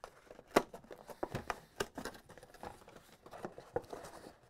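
Thin cardboard packaging box being squeezed and worked at to tear it open along its perforation: irregular small clicks, creaks and crinkles of paperboard, with a sharper snap about half a second in.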